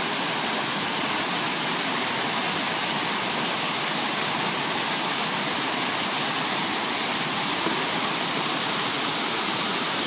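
Waterfall: water spilling over a stone dam spillway into the pool below, a loud, steady, even rush.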